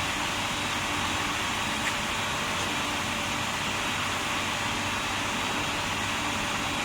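Steady hum and noise of a steel-pipe induction heat-treatment line running, with a faint steady tone under the noise.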